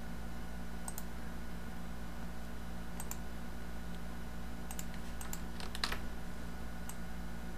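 Scattered computer mouse clicks, a pair about a second in, another pair about three seconds in and a quicker cluster around five to six seconds, over a steady low electrical hum.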